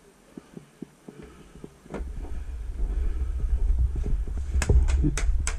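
Low rumble on the camera's microphone, like wind or handling noise, starting about two seconds in, with a few sharp clicks close together near the end.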